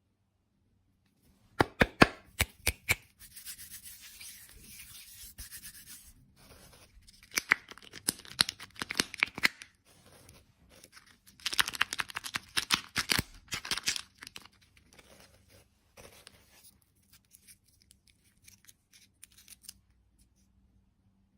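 Close-up handling sounds in three bursts: sharp clicks and taps mixed with rubbing, tearing noise, with fainter scattered ticks between.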